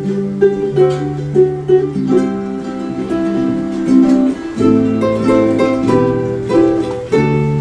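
Several ukuleles playing together: the instrumental intro of a song, with chords changing every second or so.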